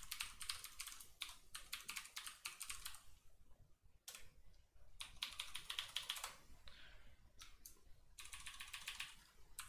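Computer keyboard typing in quick runs of keystrokes, with a pause of about a second around a third of the way in.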